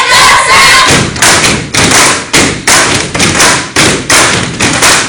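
A step team stepping in unison: loud stomps and body slaps in a driving rhythm, about two hits a second.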